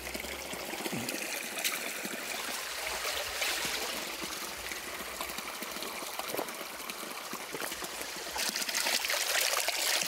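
Mountain spring water pouring steadily from a pipe onto rocks and running off in a shallow stream, growing a little louder near the end.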